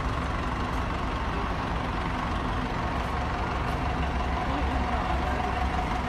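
Diesel engine of an XCMG XS143J 14-ton single-drum vibratory road roller running steadily as the machine drives slowly, with a deep engine note. A thin steady whine comes in about halfway through.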